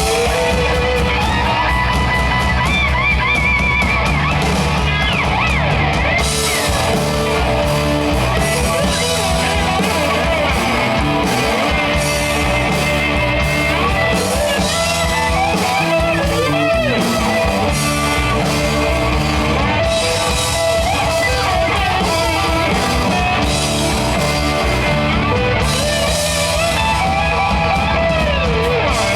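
Rock band playing: electric guitar over bass and drums, steady and loud.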